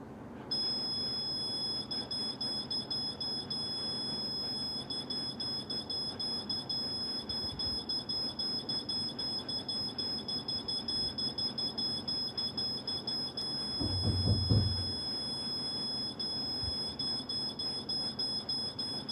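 A spirit box (ghost-hunting radio-sweep device) starts sounding about half a second in, giving a steady high-pitched electronic tone that flickers rapidly in loudness. A brief low rumble rises about two-thirds of the way through.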